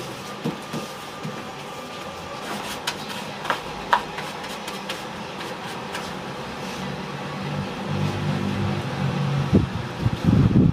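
Steady background hum, with light rustles and taps as paper sheets and board covers are slid and pressed flat on a workbench. A few louder knocks come near the end.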